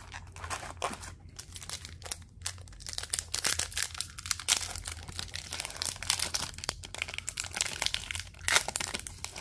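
Foil wrapper of a hockey card pack crinkling and crackling as it is handled and torn open by hand, with the sharpest crackle near the end.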